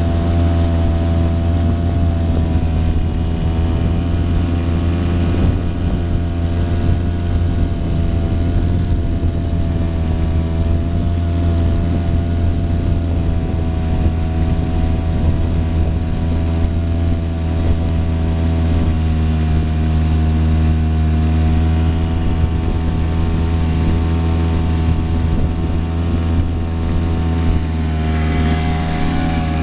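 Engine running at a steady speed, a continuous low drone with only slight changes in pitch.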